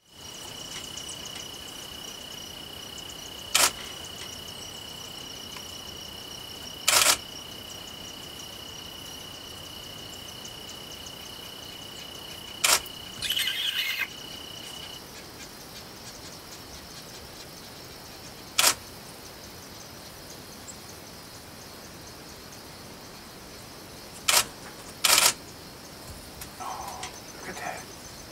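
Steady high-pitched insect chirring with a hiss above it; the steady tone stops about halfway through. Six sharp clicks, the loudest sounds, come several seconds apart, two of them close together near the end.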